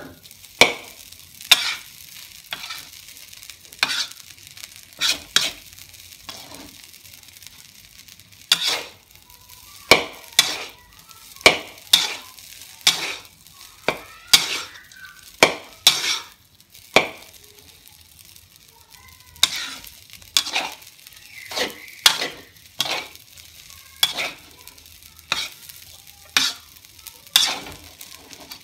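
Metal spatula scraping and tossing fried rice around a steel wok, a sharp scrape or clank about once a second over a steady sizzle of frying.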